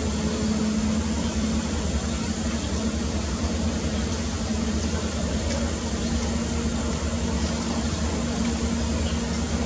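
Steady mechanical background noise: a low rumble with a constant hum that does not change.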